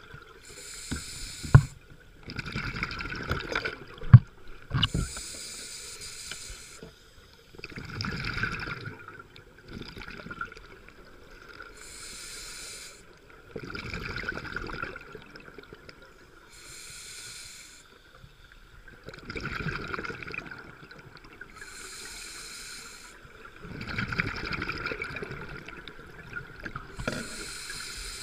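Scuba regulator breathing underwater: a high hiss alternating with a lower bubbling rush, about every five seconds, six times over. A few sharp knocks in the first five seconds, the loudest about four seconds in.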